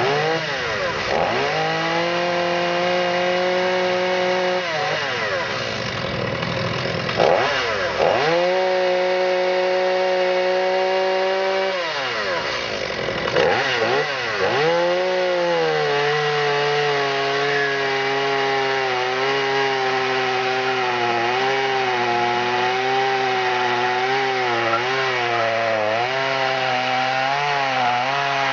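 Stihl MS 210 two-stroke chainsaw cutting through a log at full throttle, its engine pulled down to a steady pitch under load. Several times the revs dip and climb back up.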